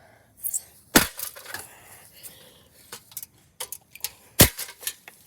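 A sledgehammer hitting an old ceiling fan: two heavy blows about three and a half seconds apart, with smaller knocks and rattles of loose parts between and after them.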